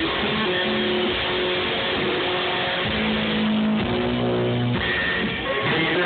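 Live one-man-band music: an electric guitar playing with drums, with held notes about halfway through. It is heard through a phone's microphone, with the top end cut off.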